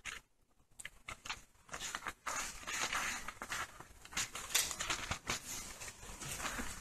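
Paper pages rustling as they are turned, with many light clicks and handling noises. It is sparse at first and steadier from about two seconds in.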